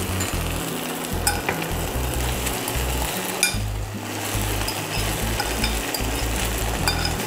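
Cold cooked rice, mushrooms and fried tofu sizzling in hot oil in a frying pan while being stirred, the utensil clicking against the pan a few times.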